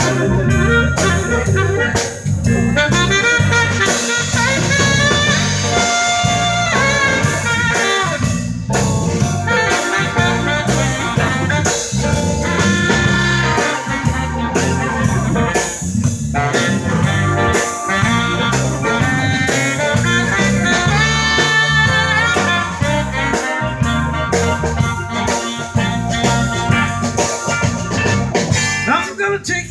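Live band playing an instrumental break with no singing: a saxophone carries the lead over electric keyboard, electric guitars and a drum kit keeping a steady beat.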